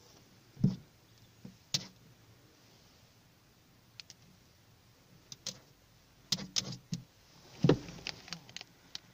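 A red fox's paws and claws knocking and tapping on a car's windscreen and bonnet, heard from inside the car: irregular short thumps and clicks, more of them in the second half.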